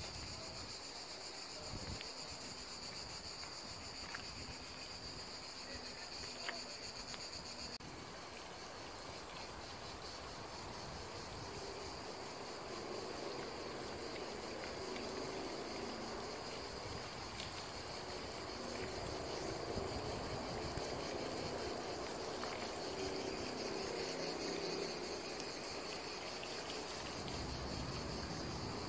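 Insects shrilling steadily in a high, even tone, two pitches at first and one after about eight seconds, with water from a garden fountain splashing softly through the middle stretch.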